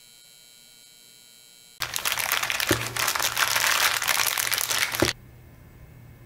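Plastic packaging bags crinkling as they are handled, a loud burst of about three seconds starting about two seconds in, with a couple of short knocks. A faint low hum runs under it and on after it.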